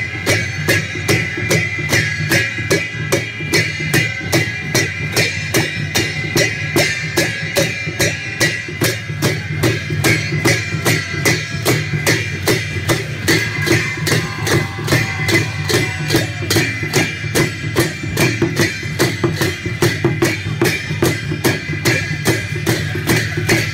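Music for the Sakela dance: a steady, even drumbeat over a continuous melody.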